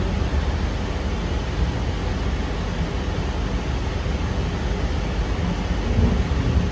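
Cabin ride noise of a Sydney Trains K set double-deck electric train running at speed: a steady low rumble and rush from the wheels and running gear, swelling slightly in the bass near the end.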